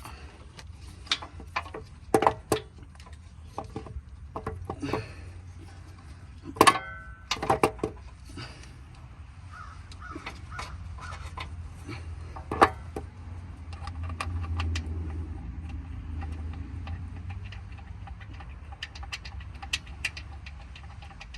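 Irregular metal clicks and clanks of a bolt and tools knocking against a truck's starter and engine block as the first starter mounting bolt is worked into place by hand. A few sharper knocks stand out, the loudest about seven and twelve seconds in.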